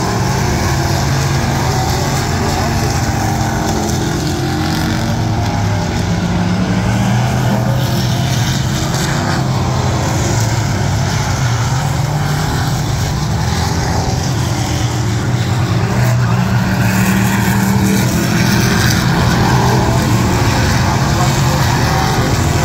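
Several figure-8 race car engines running hard and revving as the cars lap the track, their pitch rising and falling as they pass.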